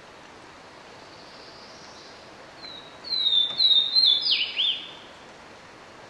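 Swainson's warbler singing one loud song phrase of clear, slurred whistled notes that step down in pitch, the last note falling lower, starting about two and a half seconds in and lasting about two seconds. A steady hiss runs underneath.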